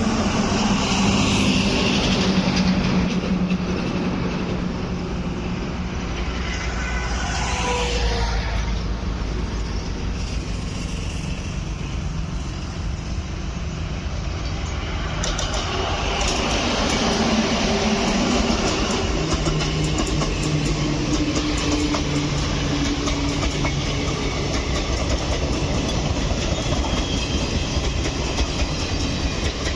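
Indian Railways superfast express train running over a railway bridge: a steady rumble with wheels clattering over rail joints, the rapid clicking growing denser from about halfway in.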